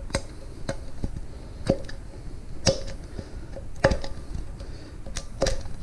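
A steel coffee can being handled and picked at with the fingers: a handful of irregular sharp clicks and taps on the metal, some with a faint metallic ring.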